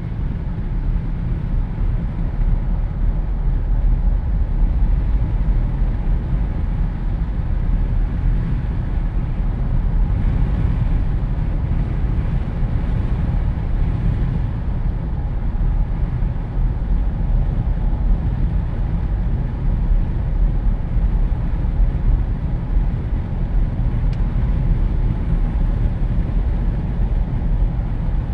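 Wind rushing in through the open windows of a Jeep Wrangler driving at road speed, heard from inside the cabin, over a steady low drone of tyres and engine.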